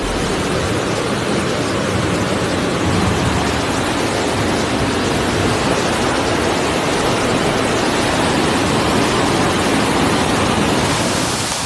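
Loud, steady rushing noise of storm floodwater, with no distinct events, changing slightly near the end.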